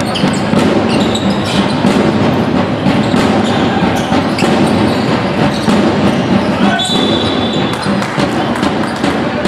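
Basketball game play: a ball bouncing on the court with shoe scuffs and impacts over a steady noisy hall background. A brief high squeak comes about seven seconds in.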